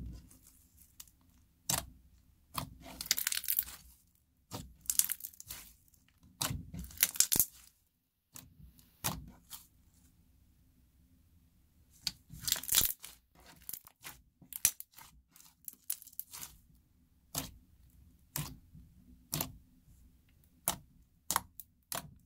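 Slime being squeezed and stretched by hand: sticky crackling bursts and sharp popping clicks, going quieter for a few seconds near the middle.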